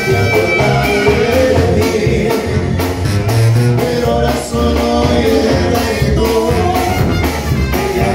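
A live Mexican banda playing dance music: a sousaphone bass line under trumpets and clarinet, over a steady beat.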